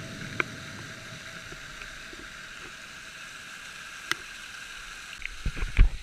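Steady rushing noise of a waterfall, with a couple of sharp clicks and a cluster of dull thumps near the end.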